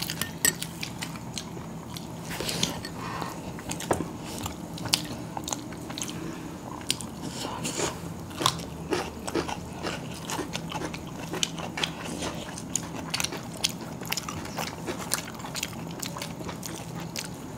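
Two people eating chicken biryani by hand: chewing and biting with frequent irregular small clicks and taps, over a low steady hum.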